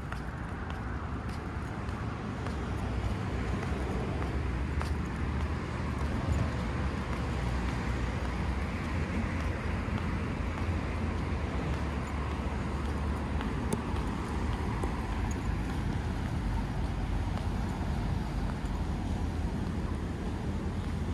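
Steady road traffic noise: a continuous low rumble of cars on a city road, with no single vehicle standing out.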